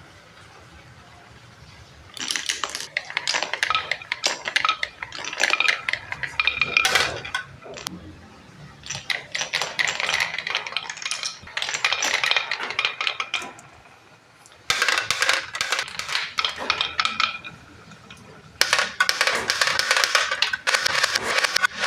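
Marbles rolling and clattering down a marble run of HABA slopes and a transparent pipe: four spells of dense rattling and clicking, separated by short quieter gaps.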